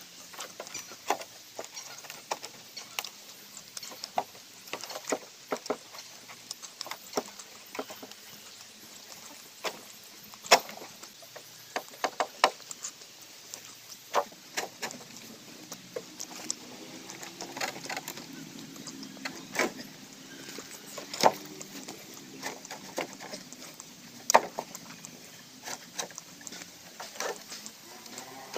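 Hollow bamboo poles knocking and clacking against one another and the wooden cart as they are shifted and lined up, in irregular sharp knocks.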